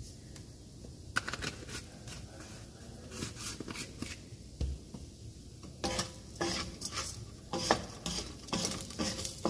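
A wooden spoon stirring and scraping toasting long-grain rice in a nonstick skillet, the grains rattling against the pan over a faint sizzle of oil. There is a sharp knock about a second in, then light scrapes, then a quick run of stirring strokes from about six seconds in.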